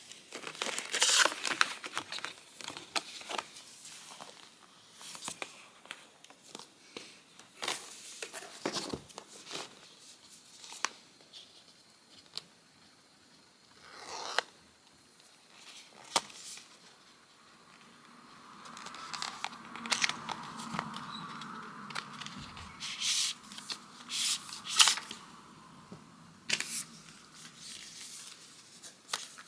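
Paper packaging of an Apple Watch box being torn open and handled: tearing strips, crinkling, and scattered clicks and knocks.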